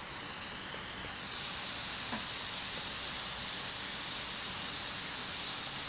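Steady hiss of the electronic load's small heatsink cooling fan running under heavy load, with one faint click about two seconds in.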